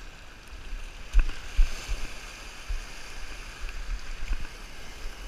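Sea water washing and hissing against a rocky shoreline, with a few low thumps on the microphone, the loudest about a second into the sound.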